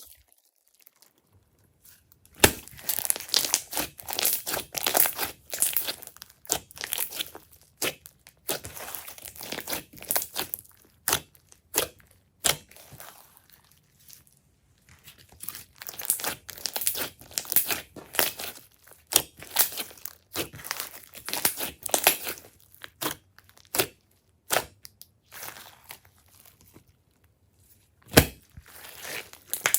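Glossy slime being squished, stretched and folded by hand, giving dense runs of sticky crackling and popping clicks. The runs stop for short pauses about a quarter and about nine-tenths of the way through.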